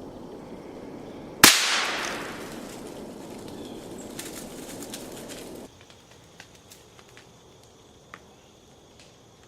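A single .22-calibre rifle shot about one and a half seconds in, sharp and loud, with an echo trailing off over about a second. Steady outdoor background noise surrounds it and drops away abruptly past the middle, leaving a few faint clicks.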